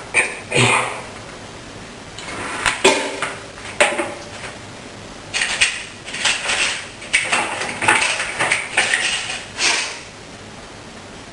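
Small hard objects clicking and clattering as they are handled and set down on a hard surface, in a string of short knocks over about ten seconds, stopping near the end.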